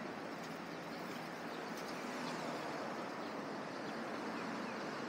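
Steady road traffic noise from passing cars on a busy city street, an even rushing hiss with no distinct horns or impacts.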